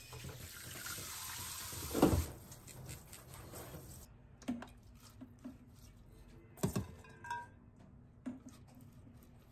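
Kitchen tap running onto soybean sprouts in a mesh strainer in a stainless steel sink, with a thump about two seconds in. The water stops about four seconds in, followed by scattered soft clicks and knocks as the sprouts are handled.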